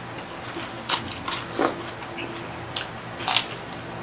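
Close-up chewing of fried fish fillet dipped in tartar sauce, with a few sharp, wet mouth smacks about a second apart.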